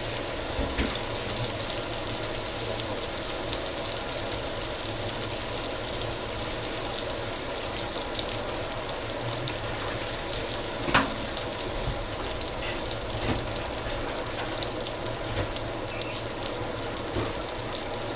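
Steady sizzling of food frying in oil, with scattered small crackles and one sharper click about eleven seconds in.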